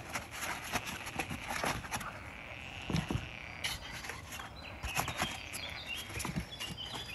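Pulp-paper egg crates rustling, scraping and knocking against each other and the plastic bin as they are handled and packed in tightly by hand: a string of short, irregular clicks and scrapes.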